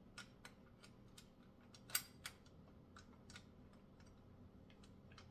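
Faint, irregular small clicks and taps of metal hardware being handled and fitted while the bike repair stand is put together, with one sharper click about two seconds in.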